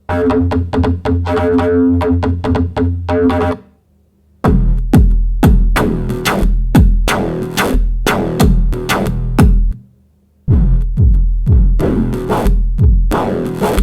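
Electronic music: a drum-machine beat with synthesizer bass, in three short sections that each stop dead for under a second, about four and ten seconds in.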